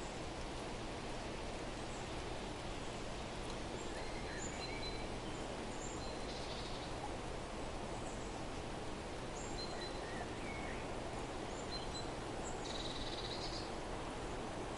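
Small songbirds chirping now and then in short high notes, with two brief buzzy trills, over a steady rushing outdoor background noise.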